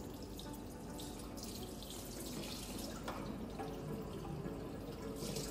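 Kitchen tap running steadily into a sink, with a few small knocks of things being handled under the water.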